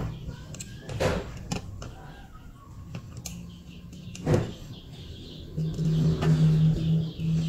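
A few sharp clicks and taps of a wire and soldering iron being worked against a circuit board. Near the end comes a louder low, steady hum in short pulses.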